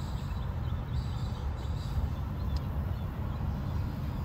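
Steady low rumble of traffic from a busy road running past the field, with faint high bird chirps over it.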